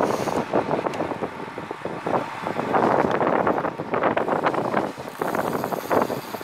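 Wind buffeting the microphone of a camera on a moving road bicycle, surging and easing unevenly, mixed with the hum of tyres on the road.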